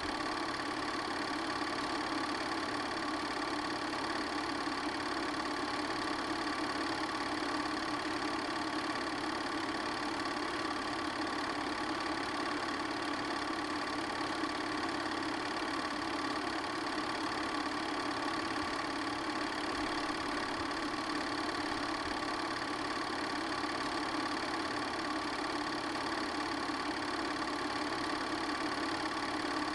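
Steady, unchanging mechanical hum of an 8mm film projector running, with no other sound in it.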